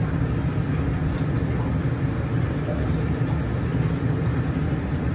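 Steady, unbroken low rumble of kitchen machinery, such as a range hood fan or a large burner, running under a big pot of simmering tomato gravy.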